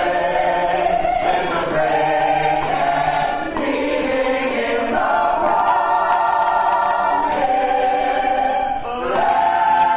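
Mixed-voice youth chorus singing in harmony, holding chords that shift every second or two.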